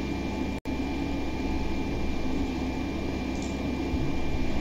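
Steady fan-like hum with hiss and a faint high whine, cut by a brief dropout under a second in.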